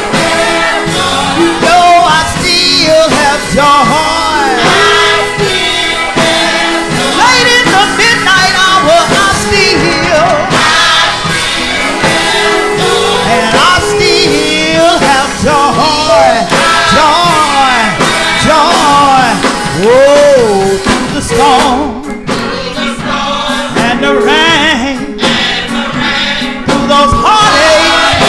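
A live gospel song: a singer's bending, wavering vocal runs over full instrumental backing.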